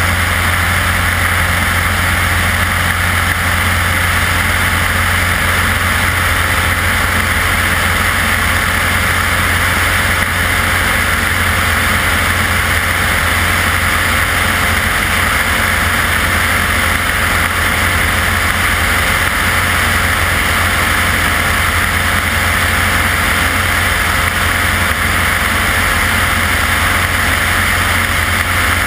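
Light aircraft's piston engine and propeller running steadily in cruise, a constant low drone mixed with loud rushing airflow over the externally mounted camera.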